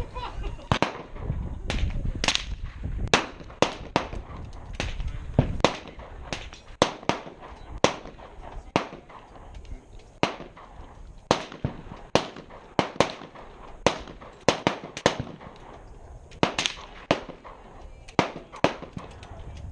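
Gunfire on a shooting range: a stream of sharp shots at irregular intervals, about one or two a second, some louder and some fainter.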